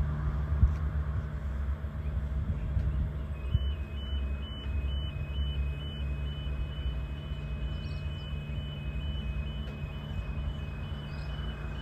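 A low, steady engine rumble, joined about three and a half seconds in by a regular electronic beeping, about two beeps a second on two alternating high pitches.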